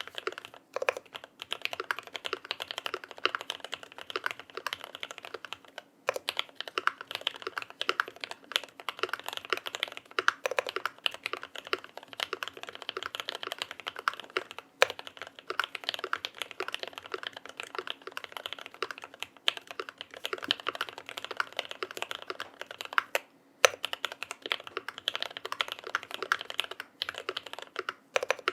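Keychron Q2 mechanical keyboard with a PE foam mod and PBT keycaps being typed on fast and continuously, a dense run of key clacks with brief pauses about 6 s, 15 s and 23 s in, and a few louder strikes.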